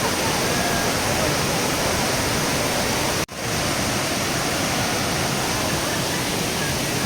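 Kravica waterfalls: a steady, loud rush of falling water, broken by a momentary gap just over three seconds in.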